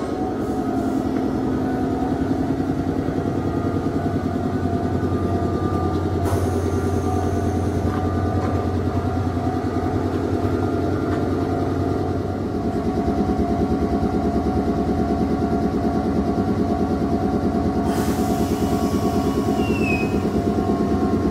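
Red Meitetsu two-car electric train standing at the platform, its onboard equipment running with a steady hum and whine. About 18 seconds in, a burst of compressed-air hiss lasting a few seconds.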